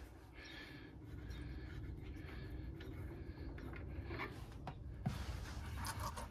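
Faint clicks of a hand working a metal oil-drain fitting under a tractor, with a sharper knock about five seconds in, over a low steady rumble.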